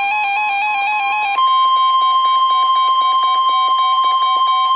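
A weather alert receiver's electronic alarm warbling rapidly between two pitches. About a second and a half in, the steady 1050 Hz NOAA Weather Radio warning alarm tone starts over it, signalling that a warning broadcast follows. The warble stops near the end while the steady tone carries on.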